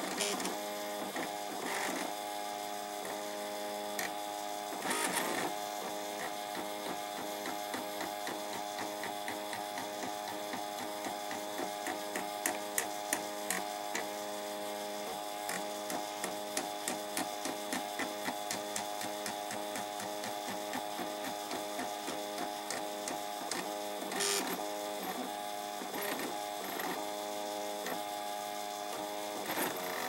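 Home-built FDM 3D printer running a print: its stepper motors whine in steady stacked tones as the head and bed move. A stretch of quick ticks comes through the middle, and the printer is briefly louder twice.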